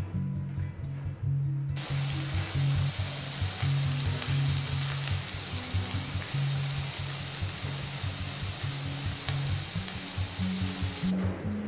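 Skewered tempe gembus satay frying in an oiled grill pan: a steady sizzle that starts suddenly about two seconds in and cuts off shortly before the end, over background music.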